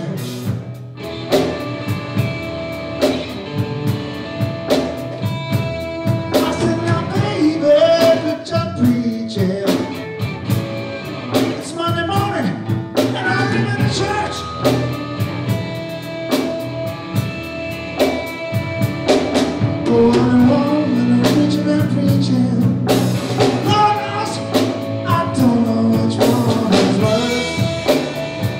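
Live blues-rock band playing: electric guitar, electric bass and drum kit with a steady beat.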